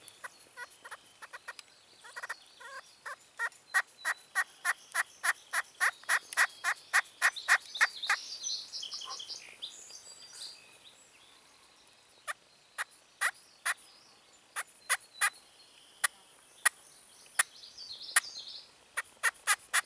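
A handmade slate friction turkey call is being played: a wooden striker with a corncob end is drawn across the slate, giving short, sharp hen clucks. They come in a quick run of about three a second for several seconds, then as single clucks spaced apart in the second half.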